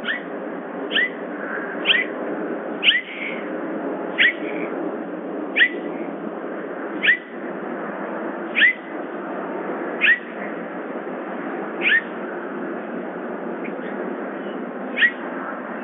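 Bobcat giving short, high chirping 'jip' calls, each a quick downward sweep in pitch, repeated about once every second and a half with a longer pause near the end, over a steady hiss.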